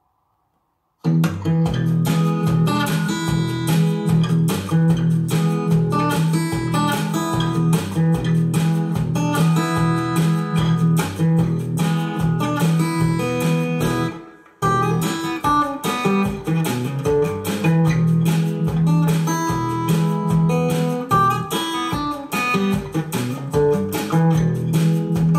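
Guitar solo music played through homemade open-back speakers, starting about a second in, with a strong steady bass line and a short break near the middle.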